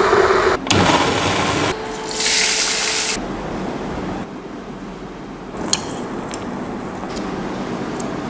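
A string of short kitchen sounds cut one after another: water bubbling at the boil in a pot at the start, then spoon-and-bowl work with flour. A few sharp clicks come about two-thirds of the way through.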